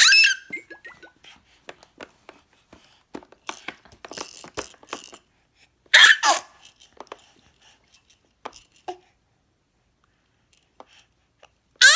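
Baby's short, loud, high-pitched squeals, each sliding down in pitch: one at the start, one about six seconds in, and one at the very end. Light clicks and taps come in between.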